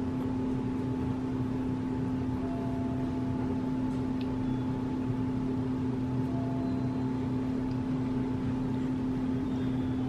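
Steady low electrical hum, unchanging in pitch and level.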